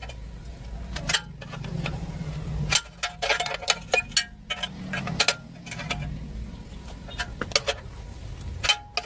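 Irregular metallic clinks and taps, some in quick clusters, each with a short ringing tone, over a low steady hum.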